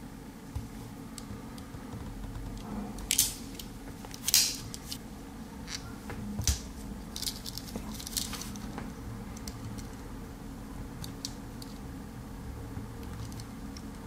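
Metal clicks and light scraping from a Victorinox Swiss Army Knife's can opener blade being handled and swung open. There are a few sharp clicks, the loudest about four seconds in, then a quick run of smaller ticks, all over a steady low hum.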